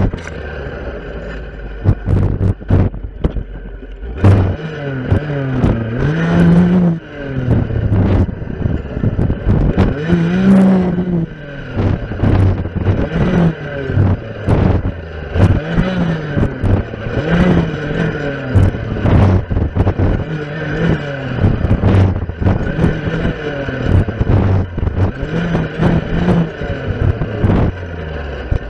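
Stihl FS 460 two-stroke clearing saw cutting through young spruce and brush. The engine speed rises and falls over and over as the blade goes into stems, with many sharp clicks and snaps from wood struck by the blade.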